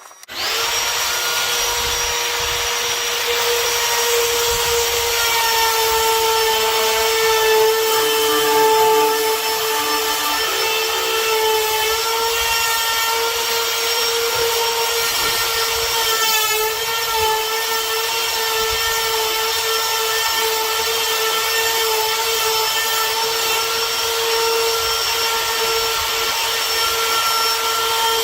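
High-speed electric power-tool motor that switches on abruptly and runs continuously, with a steady high whine over a rushing noise.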